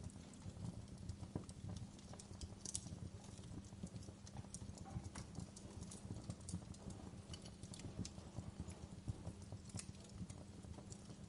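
Wood fire in a fireplace crackling, with many irregular sharp pops and snaps over a low, steady rumble of the flames.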